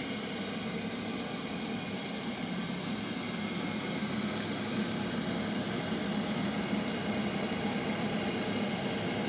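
Gas combi boiler's flue fan, a shaded-pole blower motor with its bearing freshly oiled, running steadily: an even rush of air over a low hum.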